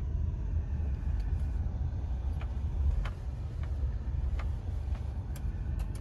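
Inside a car driving slowly on a gravel lane: a steady low rumble of tyres and engine, with a few faint clicks scattered through it.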